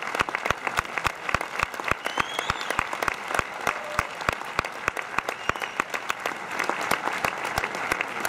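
Audience applauding, with one person's claps standing out sharply close by at about four a second.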